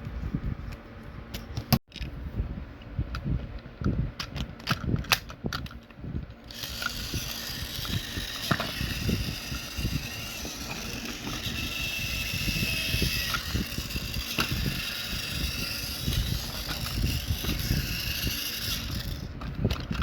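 Clicks and knocks of a plastic toy train being handled, then from about six seconds in the small electric motor and plastic gearbox of a battery-powered Trackmaster engine run steadily with a whirring rattle, stopping shortly before the end. The engine is running on a freshly fitted spare motor.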